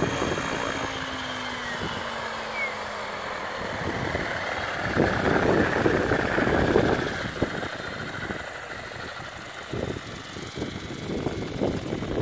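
Align T-Rex 700 electric RC helicopter winding down after landing, motor off: its rotor and drivetrain whine falls steadily in pitch over the first few seconds and fades. After that, gusty rumbling wind noise on the microphone takes over and is the loudest part.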